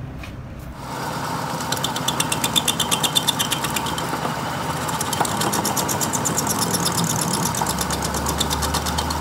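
Metal lathe running and turning the welded journal of a generator crankshaft, the cutting tool working the uneven weld build-up. It starts about a second in as a steady machine hum with a rapid, regular ticking, loudest between about two and three and a half seconds in.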